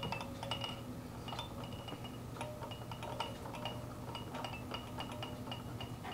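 A spoon clinking and scraping against a small glass bowl of oatmeal cereal. The light clinks repeat two or three times a second, each ringing briefly at the same pitch.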